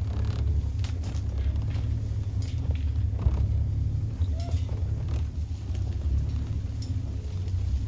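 Safari game-drive vehicle's engine running with a steady low rumble, with a few light knocks and rattles.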